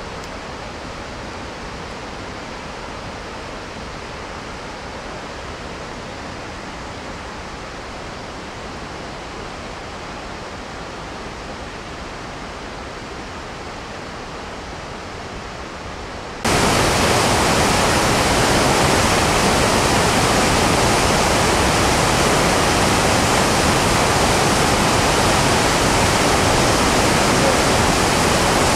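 Steady rushing of the Chenab River's whitewater, heard from a little way off. About two-thirds of the way through it cuts suddenly to the much louder rushing of the rapids close up.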